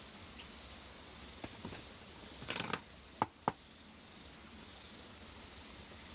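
Handling sounds of a pine board and a metal circle-cutting jig on a workbench: a short scrape about two and a half seconds in, then two sharp clicks as the board is lifted off the jig.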